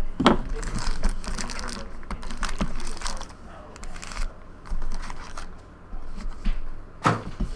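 Trading card packs being opened and handled: wrappers crinkling and tearing and cards clicking and shuffling, with a louder knock just after the start and another near the end.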